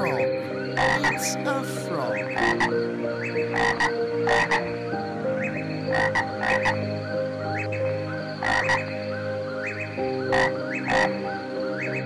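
Frogs croaking: short, repeated croaks, about one or two a second.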